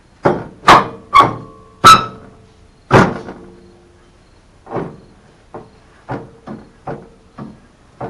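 Steel floor crossmember of a UAZ 469 body being set into place against the frame and its supports. Five loud metal clanks come in the first three seconds, a couple of them ringing on briefly. A run of about eight lighter knocks follows.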